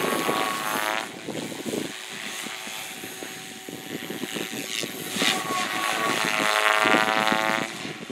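Radio-controlled helicopter manoeuvring, its rotor and motor whine gliding up and down in pitch. It is loudest near the start and again for a couple of seconds past the middle, quieter in between.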